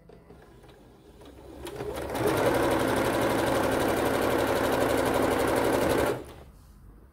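Electric sewing machine stitching a seam through two pieces of fabric. It speeds up over about a second, runs steadily at a fast, even needle rhythm for about four seconds, then stops abruptly.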